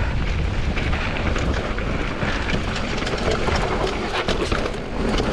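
Mountain bike riding fast over a rocky trail: wind noise on the camera microphone over tyres rolling on rock, with the bike rattling in a dense run of small clicks and knocks.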